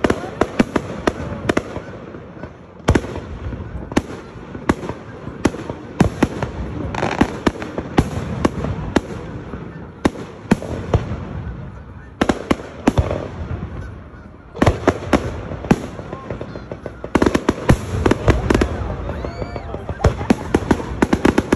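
Aerial firework shells bursting in sharp, irregular bangs, at times several in quick succession, over the voices of onlookers.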